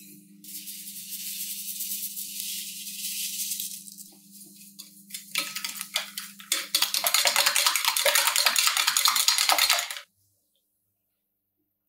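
Granulated sugar pouring in a steady hiss onto eggs in a glass bowl for about four seconds. Then a silicone whisk beats the eggs and sugar against the glass bowl in fast, rattling strokes that grow louder and stop suddenly about ten seconds in.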